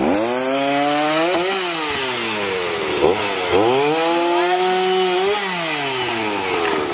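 Chainsaw cutting into the wooden posts of a play fort, its engine speed climbing and falling back twice.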